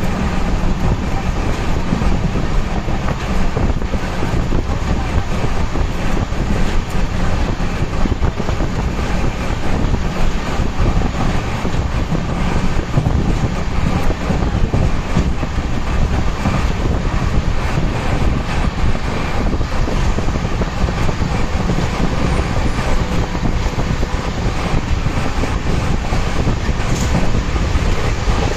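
Train running on the track: a loud, steady noise, heaviest in the low end, with no change in pace.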